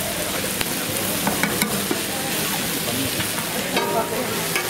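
Food frying in hot oil, a steady sizzle, with a few sharp clicks of utensils.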